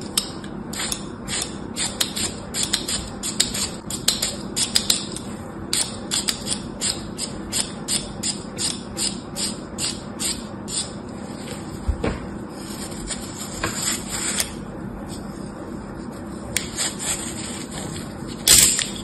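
Utility knife blade scraping a crumbly green block in short, quick strokes, about three a second. Near the end come a longer scrape and one louder stroke.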